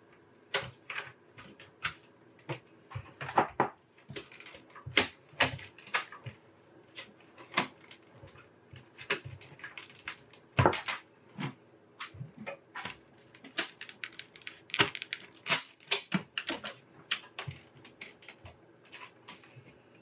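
Plastic and metal parts of an Acer Aspire AX3812 desktop case clicking, knocking and scraping as the front bezel and metal drive cage are handled and fitted back together, in rapid, irregular succession.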